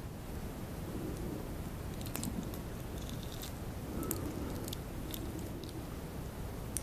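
Close-miked mouth sounds of someone chewing noodles, with scattered small wet clicks over a steady low background hiss.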